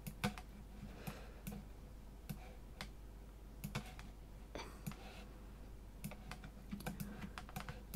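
Faint, irregular clicks from a computer mouse and keyboard, a few a second, over a steady low hum.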